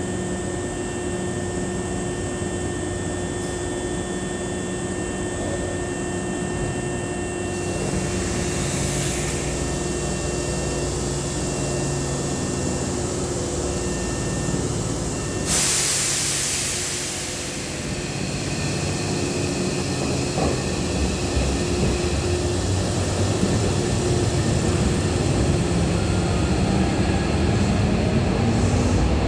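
Hankyu 7000-series electric train at a station platform, pulling away: a steady hum from the train, broken by two hisses, a shorter one about eight seconds in and a louder one about halfway. Its running noise grows steadily louder near the end as it gathers speed.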